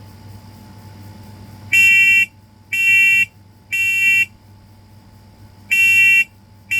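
First Alert SM100V-AC smoke alarm's horn sounding in test mode in the temporal-three evacuation pattern: three loud, shrill beeps about a second apart starting about two seconds in, a pause, then the next set of beeps begins near the end.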